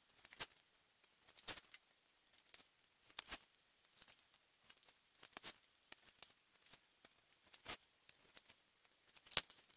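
A stick clicking and tapping against the inside of a small plastic cup as something is stirred in it. The sharp clicks come irregularly, about once or twice a second.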